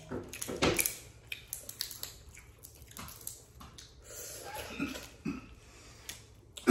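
Boiled crawfish being peeled and eaten close to the microphone: shells cracking and snapping in irregular clicks, with sucking and chewing sounds. The loudest crack comes less than a second in.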